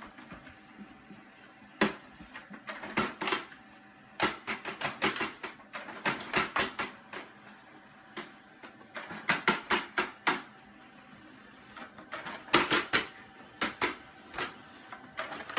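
A run of sharp, irregular clicks and taps, coming in quick clusters with short pauses between.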